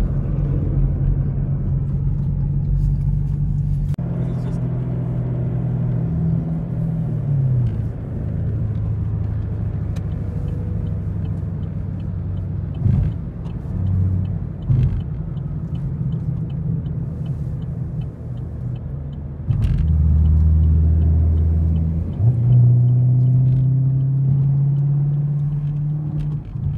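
Chevrolet Camaro's engine running under way, heard from inside the cabin over road noise. Its pitch shifts several times as the revs change, gliding down about seven seconds in and rising again about twenty-two seconds in.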